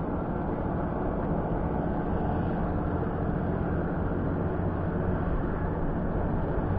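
Small boat engine running steadily at low speed, a continuous low hum.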